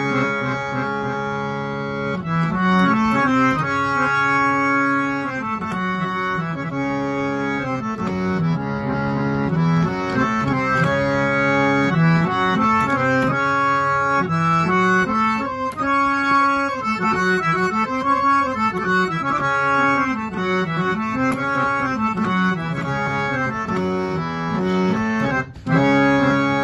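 Amrit three-reed harmonium played continuously: a melody moving over held notes, with its reedy, organ-like tone. The sound breaks off briefly near the end before the playing resumes.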